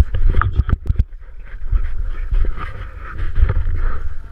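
A quick run of knocks and plastic rustling on a plastic kayak as a macaque grabs at a plastic bottle, mostly in the first second. Under it is a low rumble of wind and handling on the camera microphone.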